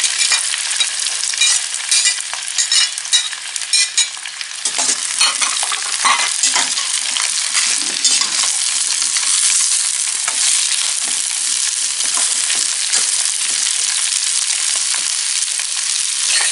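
Vegetables (cabbage, bean sprouts, mustard greens) sizzling in hot oil in a wok while a metal spatula scrapes and stirs them. Sharp clatters and scrapes in the first half, steadier sizzling in the second.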